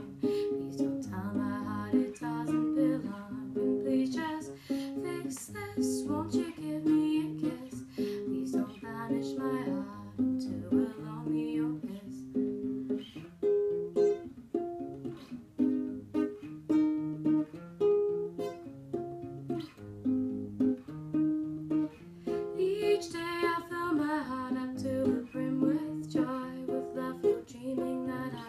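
Nylon-string classical guitar fingerpicked, plucked chords over a moving bass line, played in a small room.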